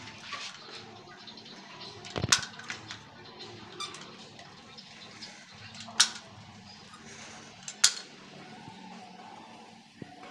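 Three sharp clicks of a hand caulking gun, a few seconds apart, as silicone sealant is squeezed out along a window frame. A faint steady low hum lies underneath.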